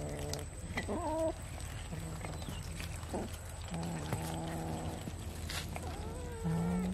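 Cats growling and yowling while competing over food. Low, drawn-out growls of up to a second or so each alternate with shorter wavering cries that rise and fall in pitch.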